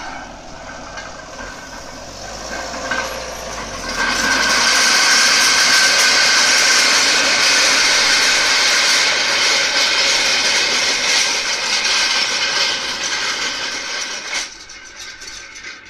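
Tractor engine running while a Güttler Greenmaster grassland harrow-seeder works the paddock, its spring tines and spiked prism rollers rolling and scraping over the ground as a loud steady hiss. The noise grows much louder about four seconds in as the machine passes close, then drops off sharply near the end.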